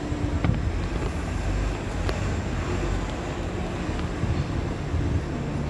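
Idling diesel engines of parked double-decker buses, a steady low rumble.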